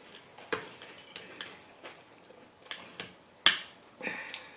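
Knife and fork clicking and scraping against a plate while cutting corned beef brisket: a scatter of light clicks, the sharpest about three and a half seconds in.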